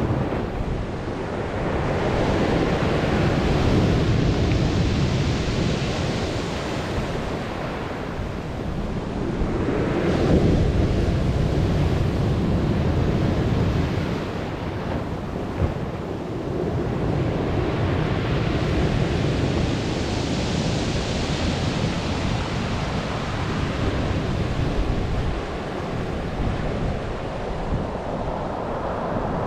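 Stormy sea surf: waves breaking and washing in slow surges of hiss every several seconds, over a steady low rumble of wind buffeting the microphone.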